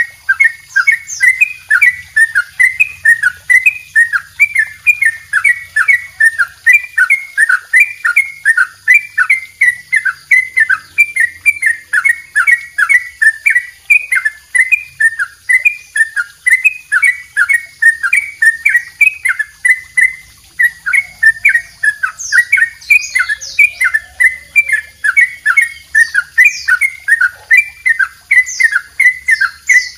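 Caged yellow-vented bulbul (trucukan) singing a long, unbroken 'double ropel': short, quick notes repeated about three or four times a second without a pause.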